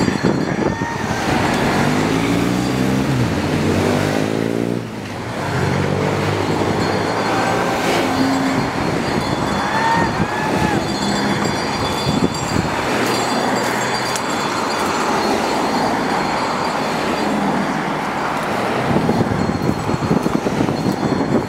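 Race caravan vehicles driving past: team support cars and motorcycles going by one after another, with a steady noise of engines and tyres. Early on one engine climbs in pitch as it speeds up, then fades about five seconds in.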